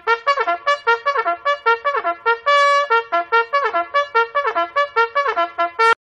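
Brass instrument playing a fast run of short, separate notes, about five a second, with one longer held note about two and a half seconds in.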